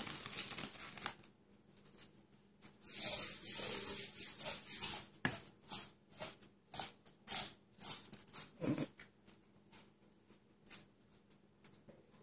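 Bag of chips crinkling as a hand rummages in it, loudest about three seconds in, followed by a string of short separate crackles over the next few seconds.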